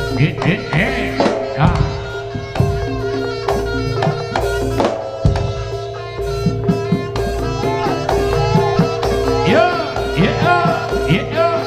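Live jaranan music from a Javanese ensemble: hand drums beat a busy rhythm, many strokes bending in pitch, over a held steady note.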